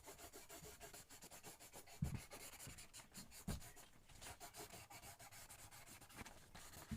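Faint scratching of quick, repeated colouring strokes on paper, with two soft low thumps about two and three and a half seconds in.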